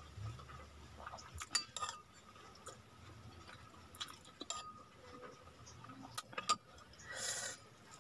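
Quiet eating sounds: scattered light clinks of a metal spoon against a ceramic bowl as sardines are scooped out, in three small clusters, with a brief soft noise near the end.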